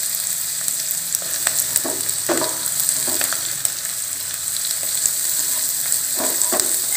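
Chopped carrot, cabbage, green peas and spring onion sizzling steadily in hot oil in a pan on high flame. Now and then the wooden spatula scrapes and knocks against the pan as the vegetables are stirred.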